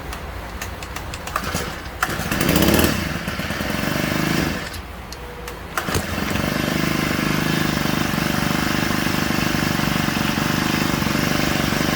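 Husqvarna 324L string trimmer engine starting, catching about two seconds in with a brief rev, dying out a couple of seconds later, then catching again about six seconds in and running steadily. It runs on a newly fitted replacement carburetor that the owner finds sticky.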